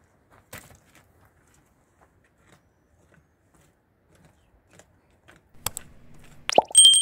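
Light scattered clicks and knocks, then near the end a sharp clank followed by a clear metallic ring that holds steady.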